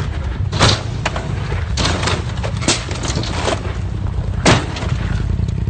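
An off-road vehicle taking a run of hard knocks and bangs, about six in all, the loudest about half a second in and near the end, over a steady low rumble.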